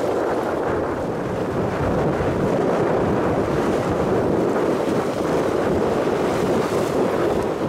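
Wind rushing across the microphone on the deck of a sailboat under way, over the wash of sea water along the hull: a steady, unbroken rush of noise.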